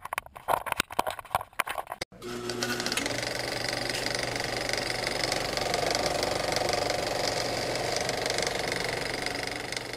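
Scattered sharp clicks, then about two seconds in a small machine starts and runs steadily with a fast, even mechanical rattle.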